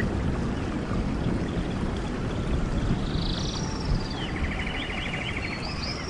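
Steady rush of falling rain and water, heavy in the low end, with birds calling over it. A buzzy trill comes about three seconds in, and a lower, rapidly pulsed trill near the end.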